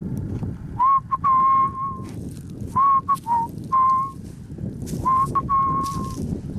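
A person whistling a tune in three short phrases, each a few notes held steady at one pitch.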